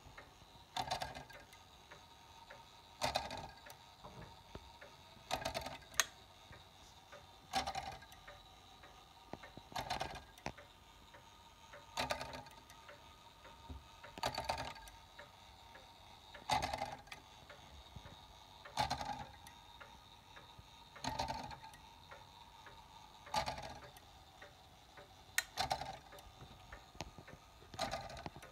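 Exposed brass spring-wound clock movement ticking, with a short cluster of clicks from the escapement about every two seconds.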